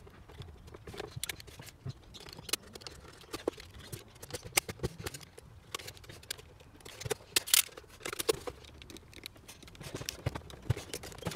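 Snap-off utility knife blade scoring and scraping into the thick plastic of a car taillight housing: irregular scrapes and clicks, with a louder run of strokes about seven seconds in.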